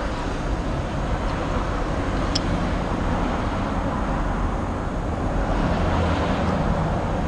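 Steady low rumble and hiss of background noise, like distant road traffic, with a couple of faint light clicks from the new spin-on oil filter being handled.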